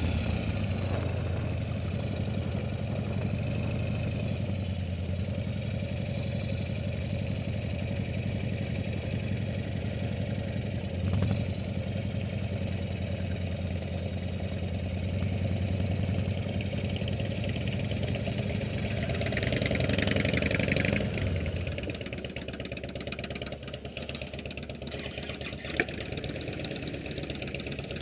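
Harley-Davidson FXR's Evolution V-twin engine running as the bike rolls along and slows. About three-quarters of the way through it drops to a lumpy, pulsing idle as the bike comes to a stop.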